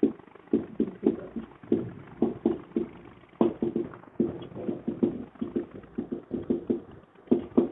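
Marker pen writing on a whiteboard: a quick, uneven run of short strokes and taps as the words are written out.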